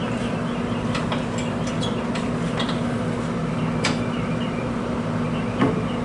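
Scattered sharp clicks and knocks of hand tools and parts during coilover suspension reassembly, over a steady low machine hum.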